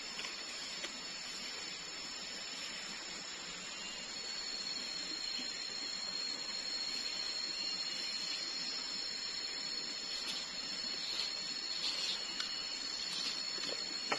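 Tropical forest ambience: a steady, high-pitched insect drone with a soft hiss beneath it and a few faint chirps later on.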